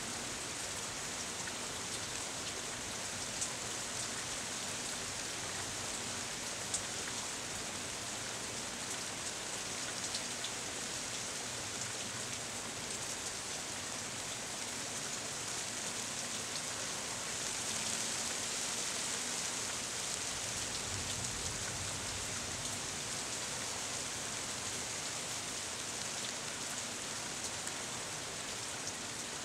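Steady rain shower falling on leafy trees: an even hiss with scattered sharp drip ticks, swelling a little louder for a few seconds past the middle.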